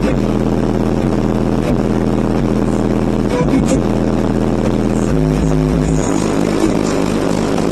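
Car audio system of twelve 15-inch subwoofers playing loud, sustained deep bass notes, heard from outside the vehicle. The bass note changes about five seconds in and again a second later.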